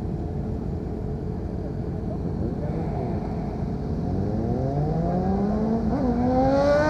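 Motorcycles running around a track, with one motorcycle's engine rising steadily in pitch and getting louder from about halfway through as it accelerates closer.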